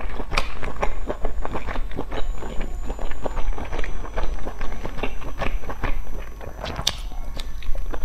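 Close-miked chewing of a mouthful of food, a rapid run of wet clicks and smacks, briefly quieter a little past the middle.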